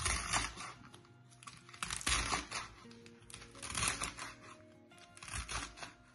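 Chef's knife chopping radicchio on a wooden cutting board: four quick runs of strokes, about one every two seconds. Background music plays underneath.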